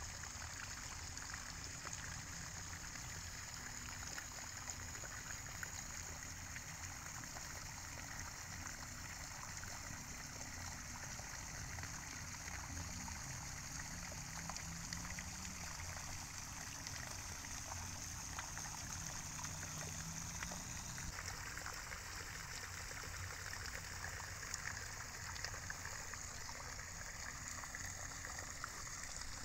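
Steady outdoor ambience: an even, continuous rushing noise with a constant high hiss and a low rumble, without distinct events.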